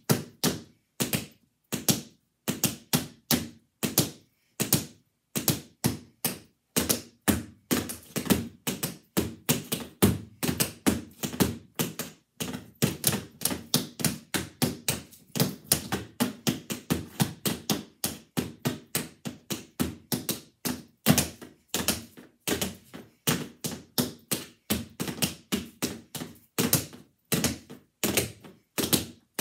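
Tap shoes' metal taps striking a portable tap board in a quick run of sharp clicks, several a second, with no music. The steps come in phrases with short pauses, most tightly packed in the middle.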